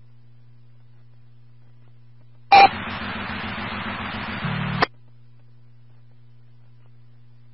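A police two-way radio channel keyed open for about two seconds with no one speaking: a sharp click at key-up, a burst of static hiss, then a click as it drops. A steady low electrical hum runs underneath throughout.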